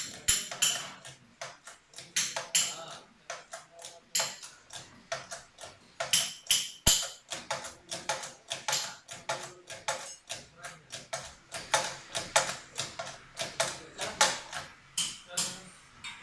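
Shop press pushing a wheel bearing out of a wheel hub, heard as a fast, uneven run of sharp metallic clicks, about three or four a second.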